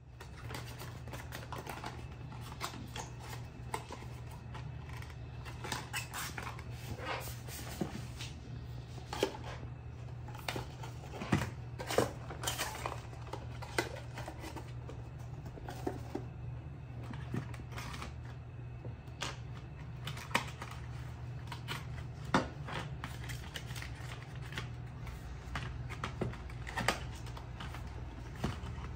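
Cardboard packaging and small plastic camera parts being handled on a tabletop: scattered clicks, taps and rustles, over a steady low hum.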